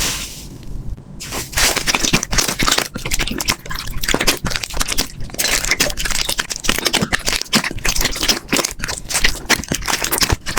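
Slime being squeezed and pressed by hand, giving a dense, irregular run of small crackles and pops. A short hiss fades out in the first second.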